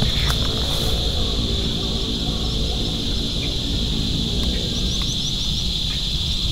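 Steady high-pitched insect drone over a low rumble, with a short run of bird chirps about five seconds in.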